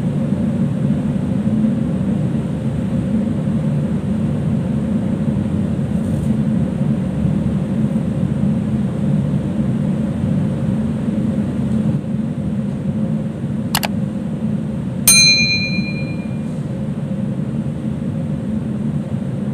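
Steady low drone of ship's machinery and ventilation on an enclosed mooring deck. About fourteen seconds in comes a sharp click, then a second later a bright bell-like ding, the click-and-bell sound effect of a subscribe-button animation.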